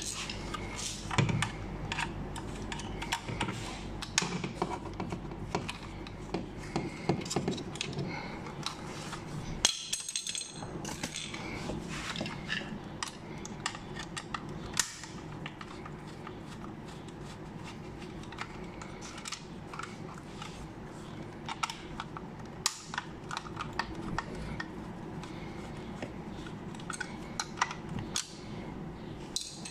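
Scattered plastic clicks, taps and scrapes as a Toyota Yaris driver's door power window switch is pried out of its plastic armrest bezel with a small screwdriver, over a steady low hum.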